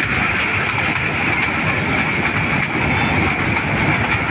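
Small kiddie-ride toy train running on its circular rail track, a steady rumble with faint ticks, under a steady high-pitched hiss.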